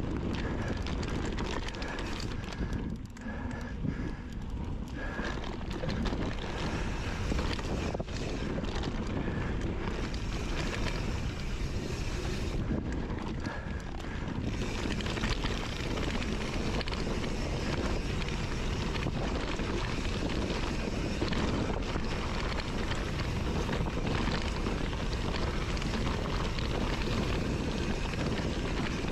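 Wind buffeting the microphone while a mountain bike rolls along a dirt trail, a steady rushing noise with occasional clicks and knocks from the bike.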